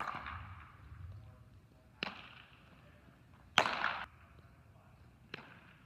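Baseball fielding practice: four sharp smacks of a ball off a bat and into leather gloves, the third the loudest, each echoing briefly in a large indoor hall.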